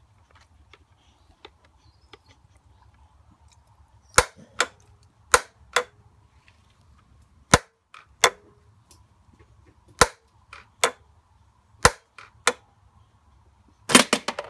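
Sharp plastic clacks from a Waverunner bait boat, mostly in pairs about half a second apart and repeating every one and a half to two seconds, ending in a quick run of clacks. A faint steady hum sits underneath.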